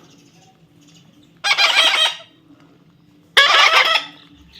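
Parrot giving two loud, shrill calls about two seconds apart.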